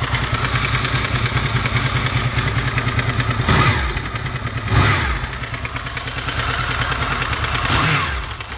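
Honda VFR800 VTEC V4 engine running warm, blipped up in revs three times and dropping back each time. Under it runs the metallic knock being demonstrated, heard mainly from the front cylinder bank; the video goes on to replace the cam-chain timing gear.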